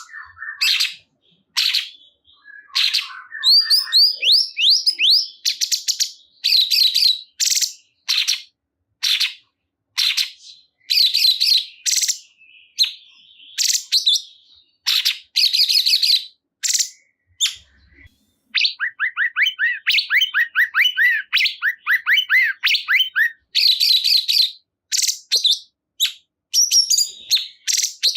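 Cungkok bird singing loud, short chirping phrases over and over. Near the middle it breaks into a longer run of fast repeated notes.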